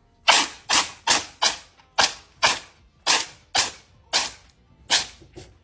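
A pet sneezing in a rapid fit: about eleven short, sharp sneezes, roughly two a second.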